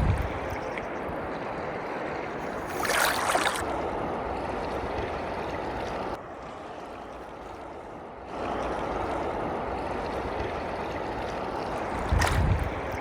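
Water rushing steadily, with a louder surge about three seconds in and a short thump near the end. It drops quieter for about two seconds around the middle.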